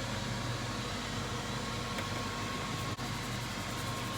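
Steady whir of a running electric fan, with a low hum and a thin steady whine, briefly cut off just before the end.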